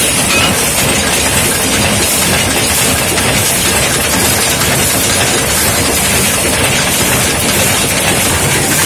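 Screw-making machines running with a steady, dense mechanical clatter of metal parts.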